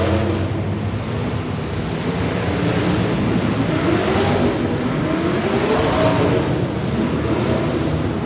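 Demolition derby car engines running hard and revving, their pitch rising and falling several times through the middle.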